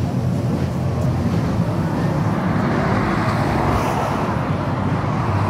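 Jet ski engine running steadily as it carves turns on the water, under a rushing noise that swells about three seconds in.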